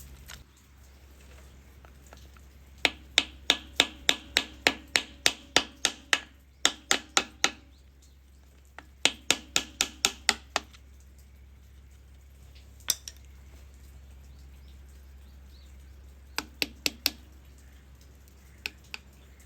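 Hammer blows on metal in several quick runs of about three strikes a second, each with a short metallic ring, then a few scattered strikes: knocking core plugs out of a V6 cylinder block.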